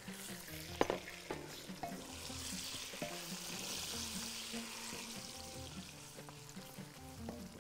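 Mutton pieces sizzling in a pot of fried onions as a wooden spoon stirs them, with a few light knocks of the spoon against the pot about a second in.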